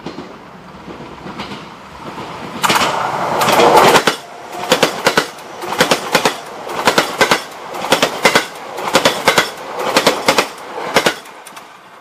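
A train passing close by: a loud rush of wheel and rail noise, then regular groups of sharp clicks about once a second as the wheels cross rail joints, stopping about eleven seconds in.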